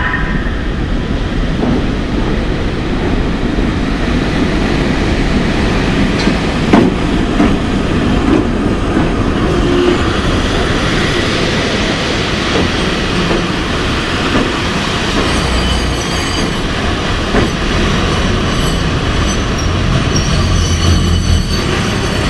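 EP1M electric locomotive rolling slowly along the track with a steady rumble of wheels on rails and a sharp knock about seven seconds in. High thin wheel squeal sets in during the second half.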